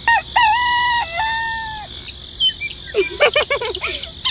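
A rooster crowing once, a cock-a-doodle-doo about two seconds long that ends on a long held note. About three seconds in, a short burst of fast, high-pitched chattering voice follows.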